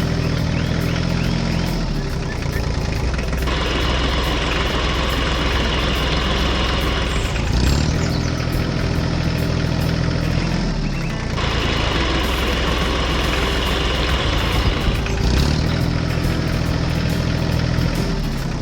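Tractor engine running, its speed dipping and picking up again every few seconds. Twice a hissing, higher-pitched noise comes in over it and holds for several seconds.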